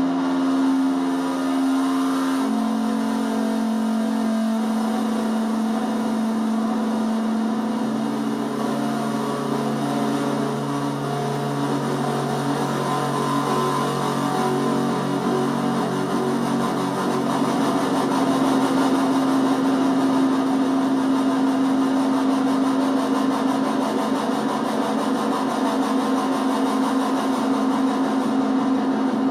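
Homemade 555-timer polyphonic keyboard synth, patched into analog synth modules as a pseudo control voltage, playing held droning tones with a rough, buzzing modulated texture. The held note steps down in pitch about two seconds in, and a lower tone joins about eight seconds in.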